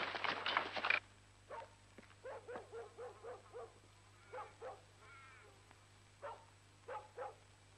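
A dog barking, fairly faint, in short yaps that come several in quick succession and then singly. This follows a dense, high chirping background that cuts off abruptly about a second in.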